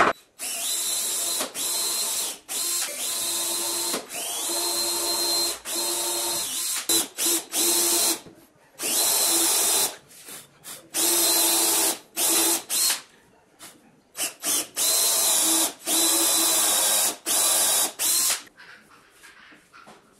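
Cordless drill boring into a wooden block, its motor run in repeated bursts of one to three seconds with short trigger pulls between them. Several bursts begin with a brief rising whine as the motor spins up, and it stops about two seconds before the end.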